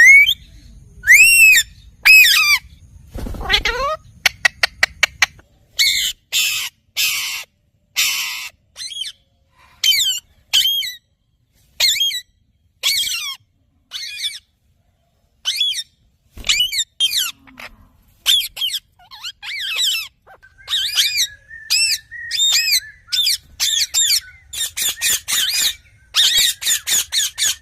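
Green pet parrot calling over and over: short arching whistle-like notes mixed with harsh squawks, with a quick run of sharp clicks about four seconds in.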